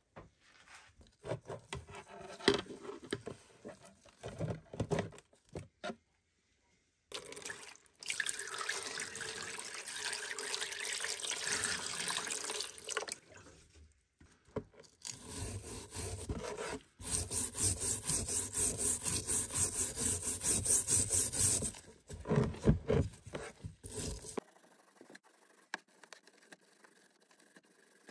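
Liquid splashing and sloshing in a tub around a rusty forged hammer head, with some handling knocks, then a brush scrubbing the submerged hammer head in quick, even back-and-forth strokes, several a second. It goes quiet suddenly near the end.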